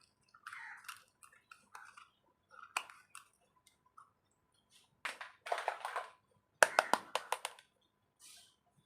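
Small toy kitchen pieces being handled: scattered light clicks and taps with brief rustly scrapes, and a quick run of sharp clicks about two-thirds of the way through.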